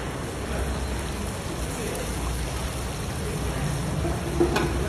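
Broth bubbling and sizzling in a giant plov cauldron under a layer of rice, a steady hiss, with one sharp clink about four and a half seconds in.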